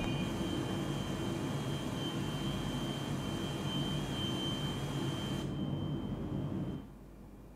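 Flour mill machinery running: a dense, steady mechanical hum with a thin high whine over it, heard from a film's soundtrack through the hall's speakers. It stops abruptly near the end.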